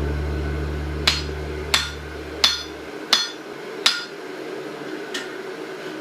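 Blacksmith's hammer striking steel on an anvil, five evenly paced ringing blows about two-thirds of a second apart, then a lighter sixth blow a little over a second later. Low background music fades out under the first blows.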